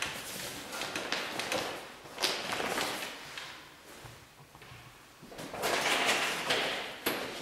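Plastic sheeting of a spray-painting tent rustling in three irregular swells, with a sharp click near the end.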